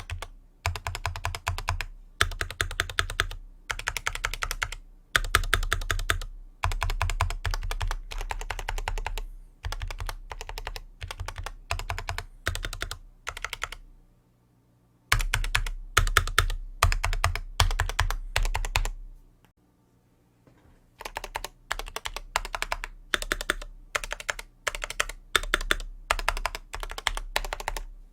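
Archon FX2 mechanical keyboard with factory-lubed C3 Equalz Banana Split switches and Geekark PBT keycaps, keys pressed in quick bursts of about a second each with short pauses between, as the stabilized keys are tested. Two longer pauses fall about halfway through and about two-thirds of the way in.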